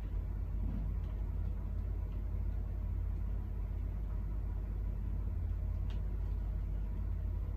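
Steady low background hum of room noise, with a faint tick about six seconds in as the bouquet stems and ribbon are handled.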